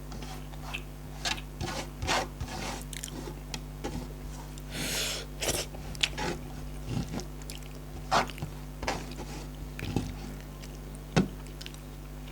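Close-miked eating: a person chewing and biting into chicken on the bone, with scattered sharp clicks and mouth smacks. A short hiss comes about five seconds in, and the loudest click comes near the end.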